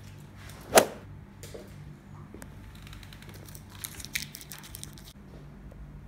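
A single sharp knock on a wooden tabletop about a second in, the loudest sound, then a short flurry of clicks and rustles of handling around four seconds in, over a steady low hum.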